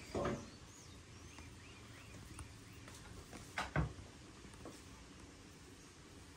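Two soft knocks as raw pão de queijo dough balls are set into a plastic container, one just after the start and a louder one a little past the middle, with faint birds chirping in the background.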